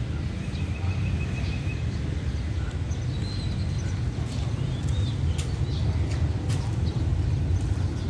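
Steady low outdoor rumble, with small birds chirping now and then.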